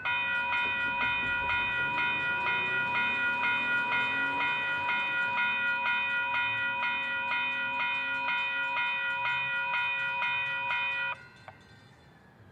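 Railroad grade-crossing bell ringing in rapid, even strokes, a little over two a second, stopping abruptly near the end. A faint rising whine sits beneath it.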